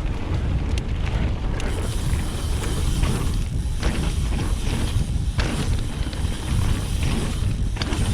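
Mountain bike riding along a dirt trail: a steady rumble of wind on the microphone and tyres on the ground, with scattered short knocks and rattles from the bike over bumps.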